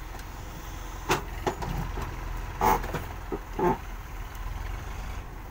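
Diesel engine of a JCB 3DX backhoe loader running steadily under load, with several sharp metal clanks as its bucket pushes against an overturned steel tractor trolley and shifts it.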